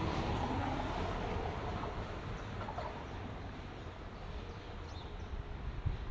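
A motor vehicle going past, its noise fading away, with a few faint high chirps and a short low thump near the end.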